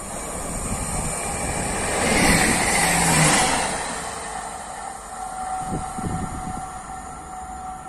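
A regional passenger multiple-unit train passing close by at speed. Its rumble and rush build, peak two to three seconds in, then fade as it draws away.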